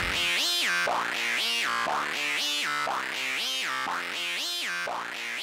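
Electronic synthesizer music: a pitched phrase that sweeps up and back down about twice a second, repeating and getting gradually quieter.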